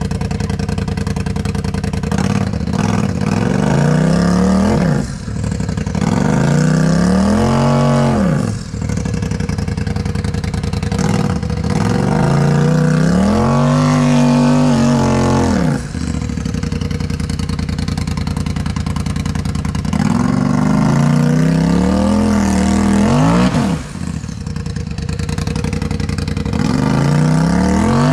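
Side-by-side UTV engine revving hard under load as it claws up a steep rock hill, its pitch rising and falling in about five long surges with brief drops off the throttle between them.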